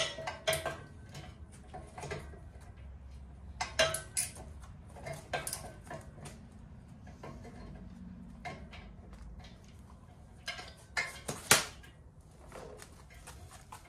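Steel hand tools clinking and knocking against a tractor's steel frame as a stubborn bolt is worked loose with a ratchet. The metallic clanks come irregularly: a sharp one right at the start, a cluster around four to five seconds in, and the loudest near the end.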